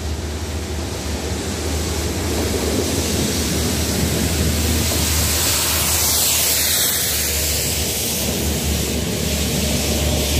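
A Network Rail railhead treatment train, locomotives hauling water-tank wagons, passing at speed: a steady low engine drone under a loud hiss and rush of the train and its rail-cleaning water jets. The hiss peaks about six seconds in as the tank wagons go by, then eases.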